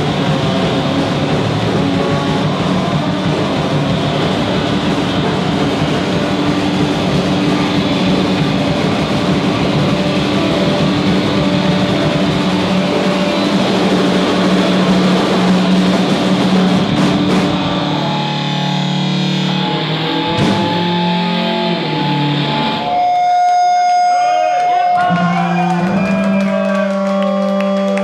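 Live rock band playing loud, with guitar and drums in a dense wall of sound. About eighteen seconds in, the full texture drops away, leaving held tones and wavering, swooping pitches over a steady low note.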